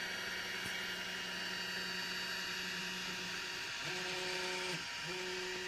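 EasyThreed K10 mini 3D printer running with a steady fan hum, then two short stretches of steady, even-pitched motor whine, each about a second long, near the end as its stepper motors move.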